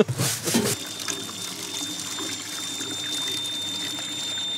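Water lapping and trickling against the side of a small boat, a steady wash.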